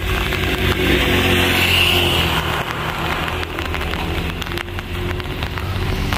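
A motor engine running steadily, with a hiss that swells during the first two seconds.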